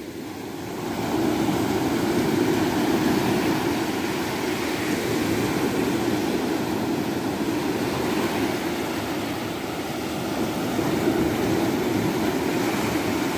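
Small waves breaking and washing up the sand at the water's edge: a steady rushing surf that swells about a second in and again near the end.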